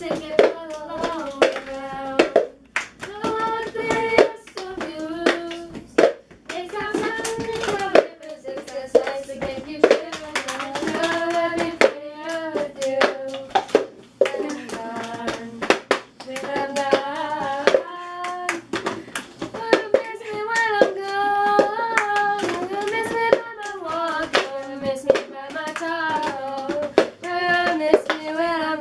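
A child singing a tune with repeated sharp hand claps or slaps over it, as in a hand-clapping song.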